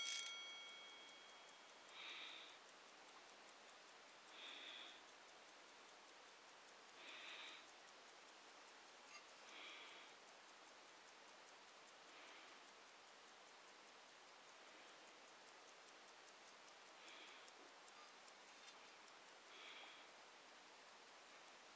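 Pocket watch movement ticking faintly and rapidly, with the last chime notes of its three gongs dying away in the first second. Soft muffled sounds recur about every two and a half seconds.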